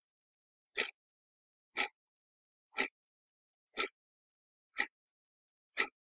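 Analog quartz alarm clock ticking, one sharp tick each second, six ticks in all.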